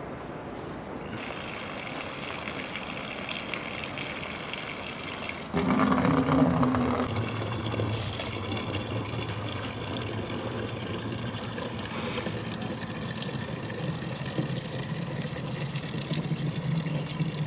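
Spring water from a pipe pours into a wooden water container, starting suddenly about five seconds in. Its splashing carries a low hollow tone that rises in pitch as the container fills.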